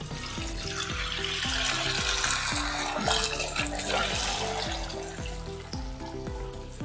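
Milk pouring in a steady stream from a plastic packet into an aluminium pot, splashing and frothing as the pot fills, starting about half a second in, over background music.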